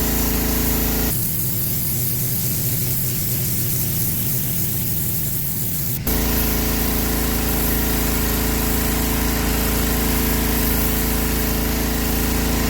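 Gas pressure washer engine running steadily with water spraying. The sound shifts abruptly about a second in and shifts back about six seconds in.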